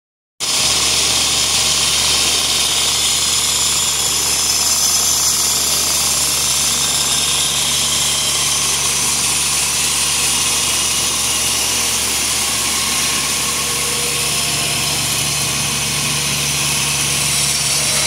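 FL Smithe AF automatic clasp envelope machine running at speed: a steady, loud mechanical rattle of its feeder, folding and conveyor mechanisms over a low hum.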